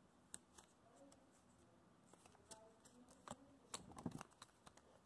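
Faint paper handling: a sheet of origami paper rustled and creased by hand, with scattered small crackles that bunch together about three to four seconds in.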